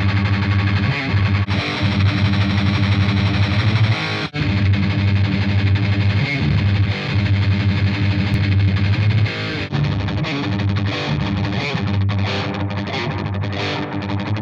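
Heavily distorted electric guitar riffing, recorded direct and played through the Brainworx Mega Dual amp-sim plugin, a copy of a Mesa Boogie Dual Rectifier, with no other instruments. The tone shifts about ten seconds in, as the next amp preset comes on.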